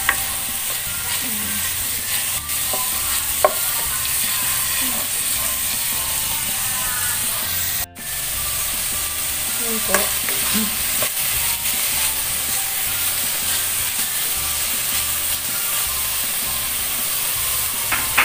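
Shredded chicken breast and carrots sizzling in butter in a non-stick pan as a spatula stirs and turns them. The sizzle is steady, with a few sharp clicks along the way.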